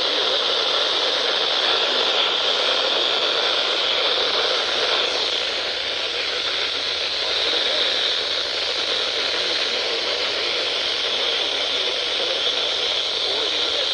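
Steady static hiss from a weakly received broadcast signal.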